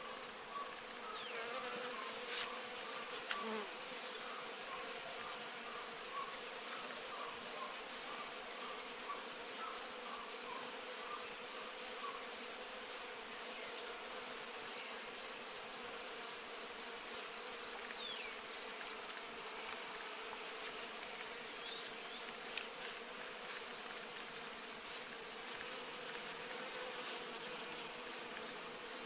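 Many bees buzzing in a steady, continuous hum as they forage on flowering phacelia during a nectar flow. A fast, even, high-pitched pulsing chirp runs along with the hum.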